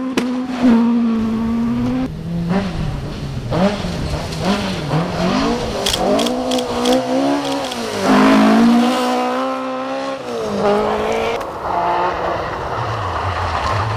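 Rally cars driven hard on a gravel stage, one after another: engines revving high and dropping back repeatedly with gear changes.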